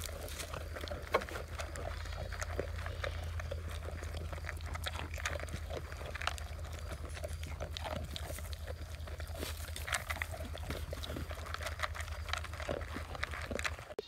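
Goat bucks eating pellet feed from a plastic feed pan: a continuous run of small crunching and clicking noises as they chew and nose through the pellets, over a steady low hum.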